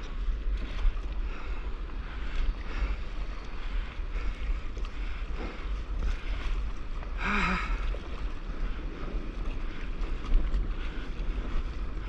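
Wind buffeting a microphone held low over the sea, with water sloshing and lapping close by. A short shout from a person about seven seconds in.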